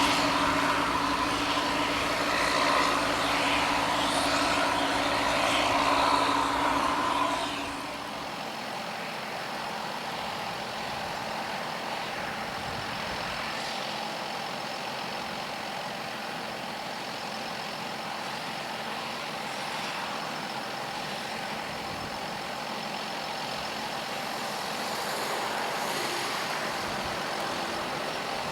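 Harvest machinery running. Close up, an engine gives a steady hum for the first seven seconds or so. The sound then drops suddenly to a quieter, more distant steady drone.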